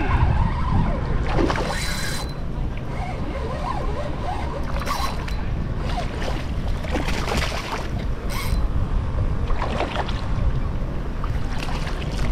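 Wind buffeting the microphone, with splashing at intervals as a hooked snook thrashes at the water's surface near the kayak.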